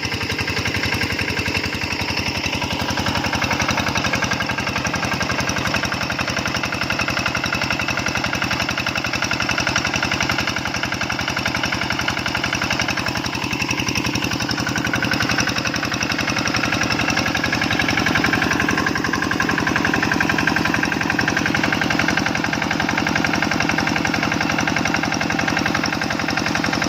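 Stationary diesel engine driving a 5-inch Niagara irrigation water pump, running steadily at an even, fast chugging pace.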